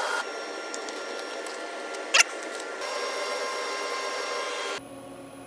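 Steady hum and hiss of shop machinery with faint whining tones, and one sharp click about two seconds in. The background shifts abruptly twice and drops quieter near the end.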